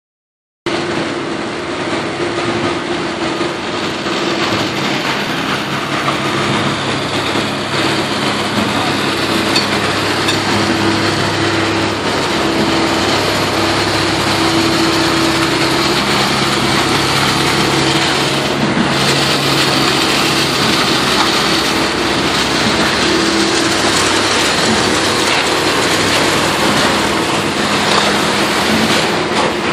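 Engine of concrete-placing machinery running steadily, a constant drone with a low steady hum.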